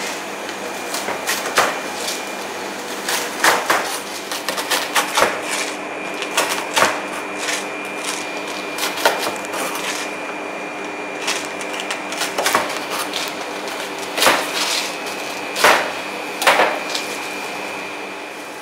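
Knife cutting and trimming crisp grilled tortilla wraps on a cutting board: irregular knocks and crunches of the blade through the crust onto the board, the loudest few near the end.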